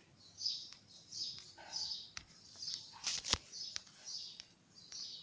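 A small bird chirping over and over, a short high chirp a little more than once a second, with a sharp click about three seconds in.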